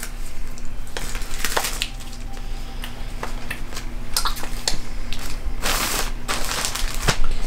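Plastic mailer bag crinkling and rustling as it is handled and folded around a shirt, with scattered small crackles and a louder rustle about six seconds in.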